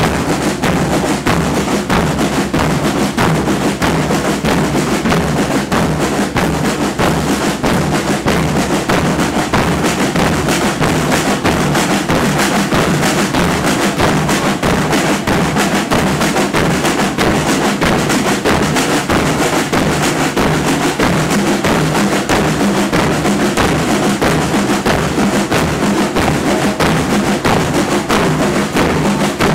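Murga drum section playing a steady, dense rhythm on bass drums with cymbals and snare drums.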